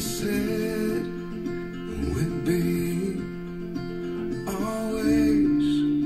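A guitar-led song played back through Nubert nuPro SP-500 floorstanding active loudspeakers and recorded binaurally in the room, as a listening test of the speakers.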